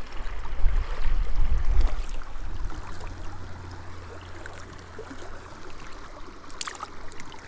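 Wind buffeting the microphone with a low rumble, gusting hardest in the first two seconds and then steadier, over the even rush of a shallow creek. A couple of faint clicks come near the end.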